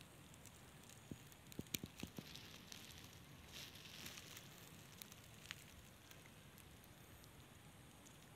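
Near silence: a faint background with scattered small clicks and crackles, a cluster of them between about one and two and a half seconds in.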